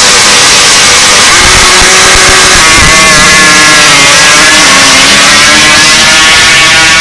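Drag-racing quad's engine revving at the line, then launching and running flat out down a dirt strip, very loud, its pitch climbing steeply about two to three seconds in as it pulls away.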